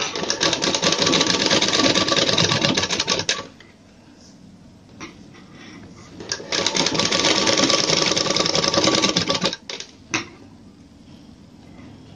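Sewing machine running in two fast stitching runs along a bias-cut fabric strip, each about three seconds long with a pause between them, plus a short burst just after ten seconds.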